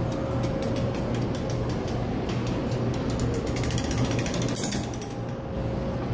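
Hand-cranked penny-pressing machine being turned, its gears and ratchet clicking rapidly as the penny is rolled flat; the clicking stops about five seconds in.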